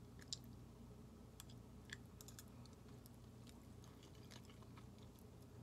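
Faint chewing of soft instant noodles, with small scattered mouth clicks and fork clicks, two slightly louder about a third of a second in and near the two-second mark.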